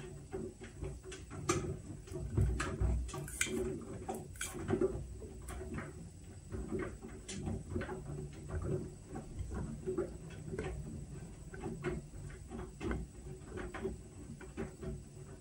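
Whirlpool washing machine running its Steam Refresh cycle: a low steady hum under irregular light clicks and knocks.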